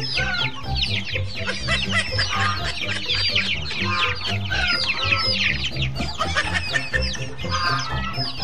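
A flock of young chickens peeping continuously, many short falling chirps overlapping in a dense chorus.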